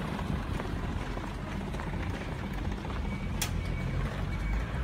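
Outdoor street ambience: a steady low rumble of road traffic, with a few faint clicks and one sharp click about three and a half seconds in.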